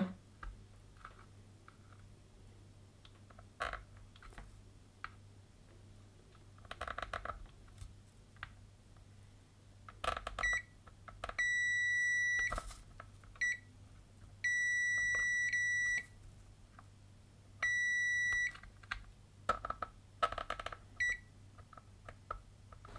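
Digital multimeter's continuity beeper sounding as test probes are touched to a ribbon cable's contacts: a few short chirps and three steady high beeps of about a second each, all in the second half, among faint clicks and scrapes of the probe tips. Each beep marks a contact that has continuity through the flex cable; many contacts stay silent.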